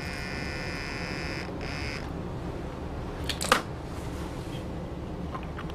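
Motorized pipette controller whining steadily as it dispenses solution from a serological pipette into a tube. The whine stops about one and a half seconds in and comes back for a short burst. About three and a half seconds in there is a sharp knock of plastic or glass, followed by a few light clicks near the end.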